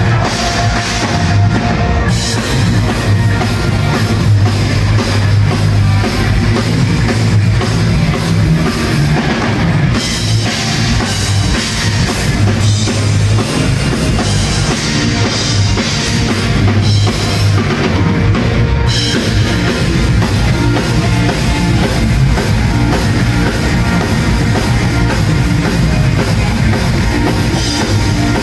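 Loud live medieval-rock band music: a drum kit beating steadily under bagpipes and the rest of the band.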